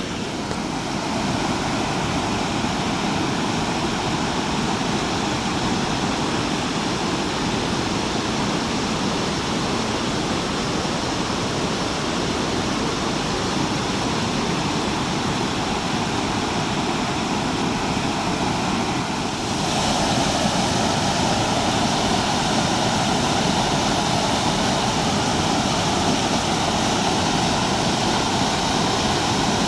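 Waterfall rushing steadily. About twenty seconds in it grows louder and hissier.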